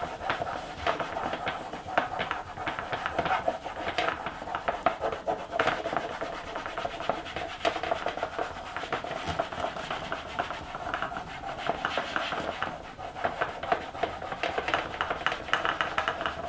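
Cloth rag rubbed rapidly back and forth over the black plastic case of a Commodore 16, hand-polishing the scuffed plastic back to black. It makes a continuous scratchy rubbing of quick, closely spaced strokes.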